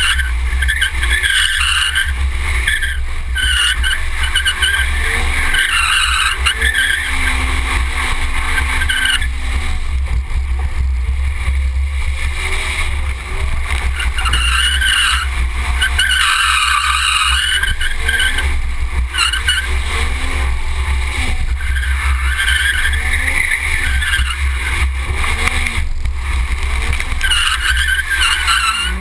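Car drifting on wet pavement: the engine revs up and down over and over while the tyres slide and hiss through standing water, over a constant low rumble.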